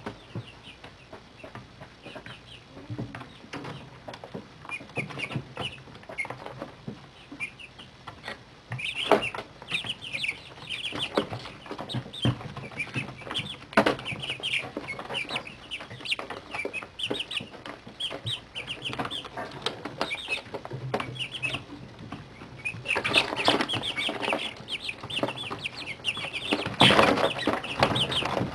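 A brooder of month-old chicks peeping, many short high cheeps overlapping, busiest a third of the way in and again near the end. Scattered sharp taps sound among the calls.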